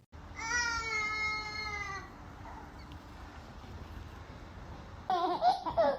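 A dog whining: one long, high, slightly falling whine lasting nearly two seconds, then a run of shorter wavering whines near the end.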